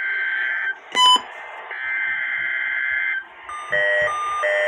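Emergency Alert System weekly test on a weather radio: two bursts of the SAME digital header, a harsh buzzy data warble, with a short sharp beep between them. About three and a half seconds in, a repeating pattern of alternating alert beeps starts.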